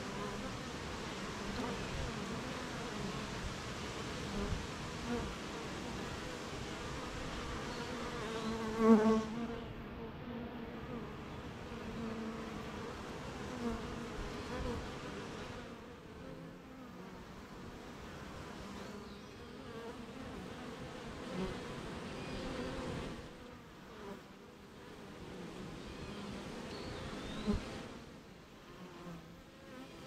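Honeybees buzzing around their hive, many at once, a steady hum with single bees coming and going. About nine seconds in one bee flies close past, its buzz briefly much louder.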